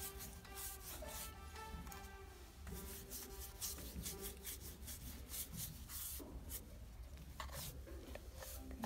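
Bristle applicator brush stroking hoof oil onto a horse's hoof wall: repeated scratchy rubbing strokes, with background music.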